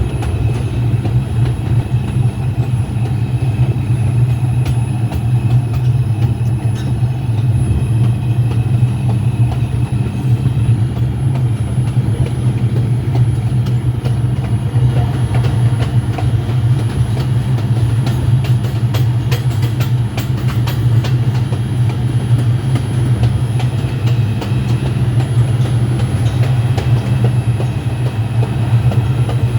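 R142 subway train running along the track, heard from inside the car as a loud, steady low rumble with a faint steady whine and scattered wheel-on-rail clicks.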